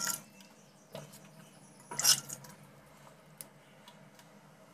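Steel ladle knocking against steel cookware while serving curry: a faint clink about a second in and a louder, short clatter about two seconds in.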